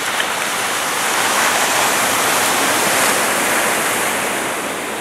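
Transall C-160's two Rolls-Royce Tyne turboprop engines at full power as it climbs away, heard as a steady rushing noise. It swells to its loudest about three seconds in, then begins to fade.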